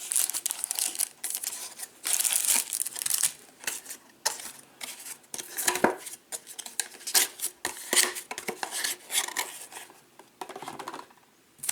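Cardboard trading-card hanger box being torn and pried open by hand: uneven rustles, tears and small clicks of card stock, easing off near the end.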